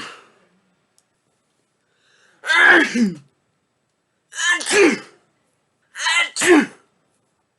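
A person sneezing three times in a row, about one and a half to two seconds apart. Each is a voiced two-part "ah-choo", with the tail of an earlier sneeze right at the start.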